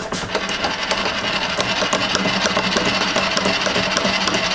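An insert face mill on a Bridgeport milling machine cutting across the face of a cast-iron brake rotor, giving a steady, dense scratchy rattle over the spindle's hum. It is a resurfacing pass to take out the runout and glazed hot spots that were causing a violent brake shimmy.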